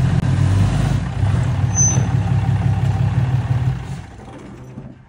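Heavy-duty pickup truck engine running loudly as the truck pulls in towing a gooseneck trailer, with a short high squeal about two seconds in. The engine sound drops away about four seconds in as the truck stops.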